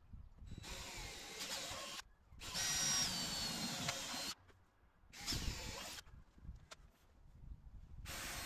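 Cordless drill drilling holes in the plywood foredeck for the fairlead bolts, run in four short bursts with brief pauses between, the last starting near the end.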